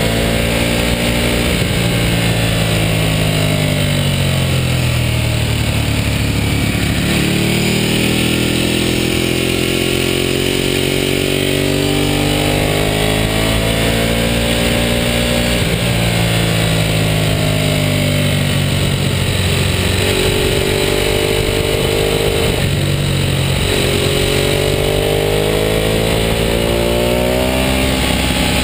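Ducati superbike's L-twin engine under way at speed, its revs climbing and dropping several times as it accelerates and backs off. A steady rush of wind runs underneath.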